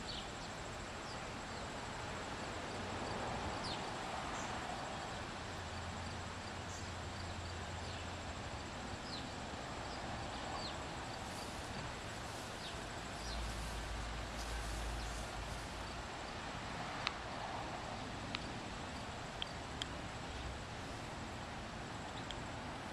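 Outdoor yard ambience: a steady background hiss with scattered faint, short chirps and a few small clicks.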